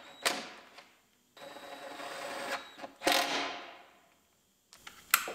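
Cordless power driver driving the bolts that fasten the door glass to the window regulator. It runs in three short spurts, the middle one a steady whir, each trailing off as the motor stops, with a few clicks near the end.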